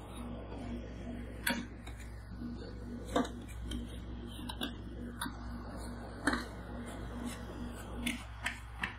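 Metal scrapers scraping across frozen Coca-Cola ice cream base on the steel cold pan of a rolled ice cream machine, with several sharp clicks of metal blade on metal pan. A steady low hum runs underneath.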